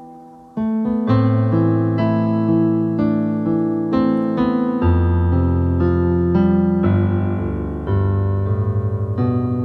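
Electronic keyboard in a piano voice playing a slow intro of sustained chords over a bass line. After a fading chord at the start, new chords come in about half a second in and change roughly once a second.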